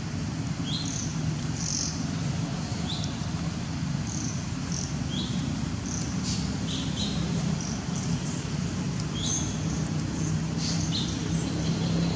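Short, high-pitched animal chirps, about a dozen scattered irregularly, over a steady low hum.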